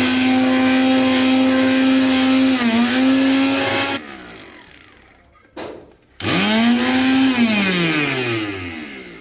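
Mixer grinder motor running with a very loud, steady high whine, switched off about four seconds in and winding down; after a click it is started again, runs briefly, and winds down with a falling pitch near the end. The excess noise comes from worn motor bushes that need replacing.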